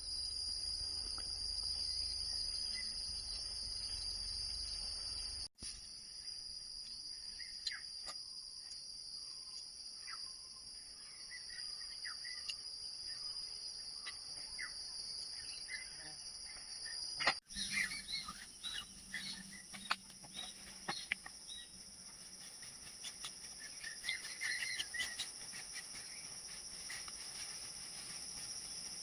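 Steady high-pitched chorus of insects with scattered short bird chirps. The sound cuts out abruptly twice, once near the start and once about midway.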